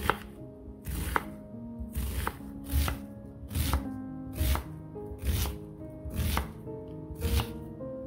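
Kitchen knife chopping onion on a wooden cutting board: about ten sharp cuts, roughly one a second, ending shortly before the close. Background music plays underneath.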